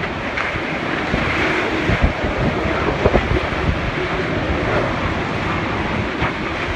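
Typhoon-force wind blowing hard and gusting across the microphone, with a few short knocks about two and three seconds in.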